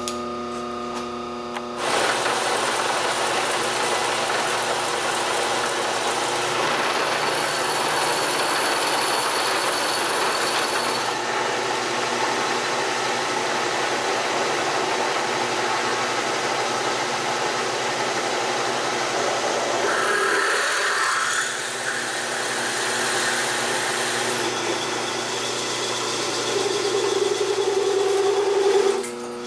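Vertical milling machine cutting a metal plate held in its vise: the spindle runs steadily under the hiss and chatter of the cutter, the sound shifting a few times as the cut changes. Near the end a 9/16-inch roughing end mill plunges into the plate to open a hole for a 5/8-18 tap.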